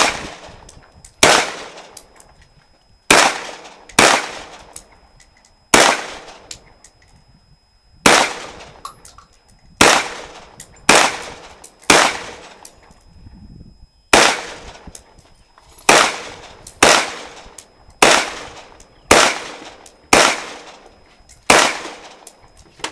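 AR-15 rifle firing about sixteen single shots at an uneven pace, one every one to two seconds, each crack trailing off in a short echo.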